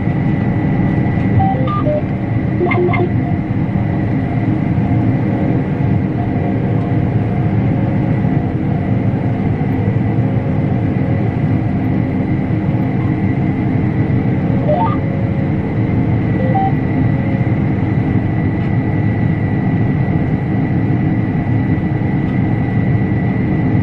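Combine harvester running steadily under load, a deep even machine drone with a thin steady high whine over it and a few short faint beeps.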